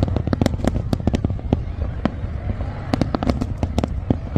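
Large aerial fireworks display: a rapid, irregular string of sharp bangs over a steady low rumble, thinning out briefly about two seconds in.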